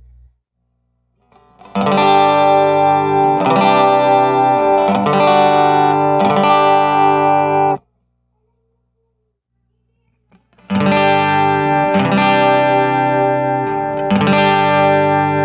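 Acoustic guitar played through a Cube Baby AC acoustic guitar effects pedal: chords struck about every second and a half in two passages, each cut off sharply, with a silent gap of about three seconds between them.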